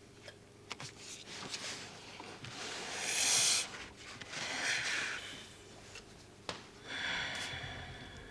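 A person's noisy breathing: three long, hissing breaths or sighs about a second each, the loudest about three seconds in, with a few faint clicks.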